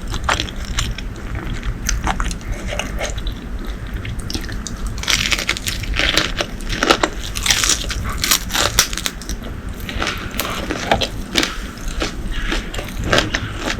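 Close-miked biting, chewing and crunching of crunchy fried food in a mouth, as a dense run of sharp crackles, busiest in the middle.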